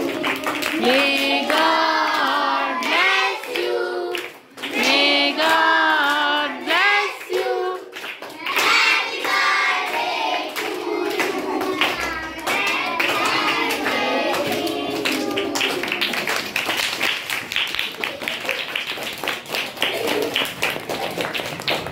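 A group of children singing together and clapping along. In the second half the singing thins out and fast, steady group clapping takes over.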